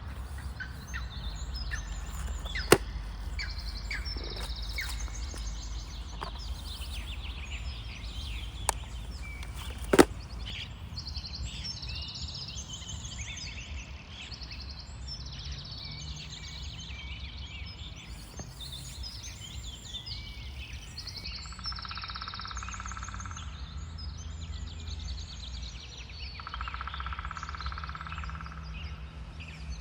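Small birds chirping and singing over a steady low rumble of wind. Three sharp clicks fall in the first ten seconds, the loudest about ten seconds in, and two short buzzing bursts come later.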